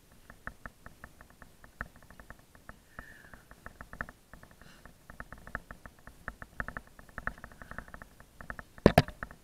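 Climbing rope and gear being handled by gloved hands at the harness: a rapid, irregular string of small clicks, taps and rubs, with one sharp knock near the end.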